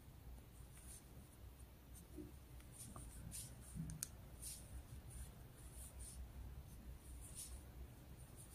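Faint scratching and light ticks of a metal crochet hook drawing combed cotton yarn through stitches, with a small cluster of clicks about three to four seconds in.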